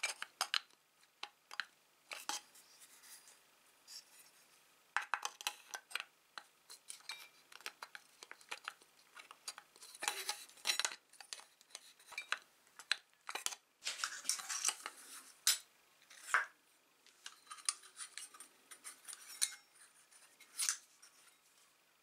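Pliers clicking and scraping against the aluminium filter funnel of a moka pot, in irregular short metallic clicks and scrapes, as the pressed-in perforated filter disc is pried loose.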